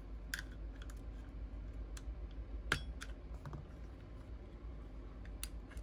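Scattered light clicks and taps of a small screwdriver and metal parts against a CZ P-07's polymer frame as the magazine release pin is worked out. The sharpest click comes a little under three seconds in.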